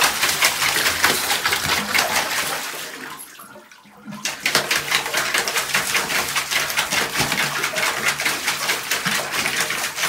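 Water running from a bathtub faucet and splashing as a German Shepherd bites at the falling stream, in quick irregular splashes. The splashing fades out about three seconds in and starts again abruptly a second later.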